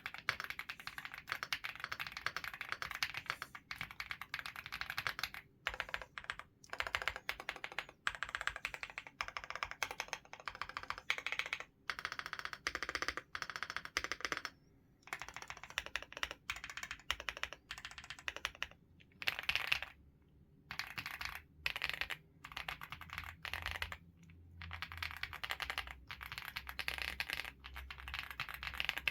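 Typing on a fully foamed mechanical keyboard with an FR4 plate: quick runs of keystrokes broken by short pauses.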